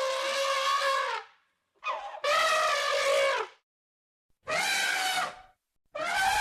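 Brontosaurus sound effect: a series of long, pitched dinosaur calls, each about a second long, separated by short silences.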